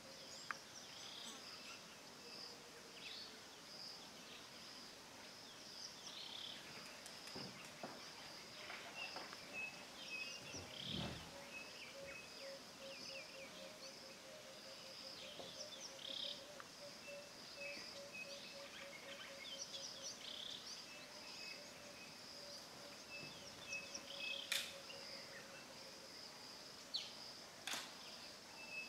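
Faint bush ambience: many short, high chirps from small birds over a steady, pulsing high insect trill, with a low pulsing note through the middle. There are two sharp clicks near the end.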